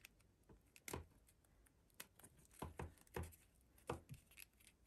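Faint, scattered short rustles and ticks of paper cord being handled by hand as the end of the wrapping cord is pulled through the wraps of a bag handle.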